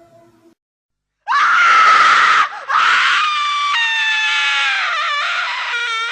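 A little girl screaming: a sharp high scream starts about a second in and breaks off briefly, then a second long scream slowly falls in pitch and turns wavering near the end.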